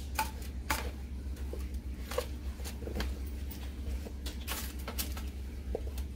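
Spatula scraping and tapping on a lined baking sheet as chunks of potato and sweet potato are turned over: irregular light clicks and scrapes, over a steady low hum.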